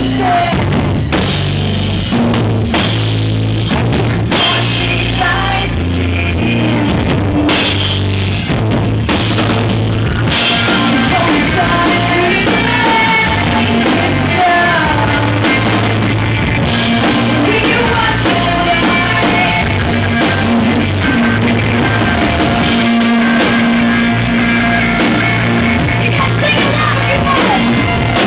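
Rock band playing live: electric guitars, bass and drum kit, with a woman singing lead over them.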